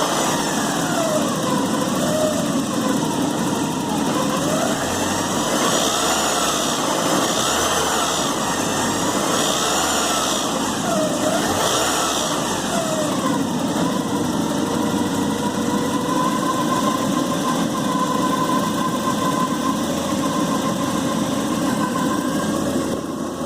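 Four-cylinder engine of a 1986 Porsche 944 naturally aspirated, blipped up and down about half a dozen times, then left idling steadily, with the rattle it is being recorded for.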